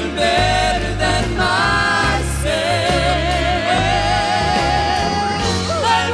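Gospel vocal trio singing sustained notes with vibrato over a steady bass accompaniment, the longest note held from about four seconds in until near the end.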